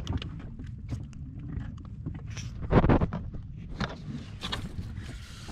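Camera handling noise: a steady low rumble with scattered knocks and bumps, and one louder thump a little before the middle.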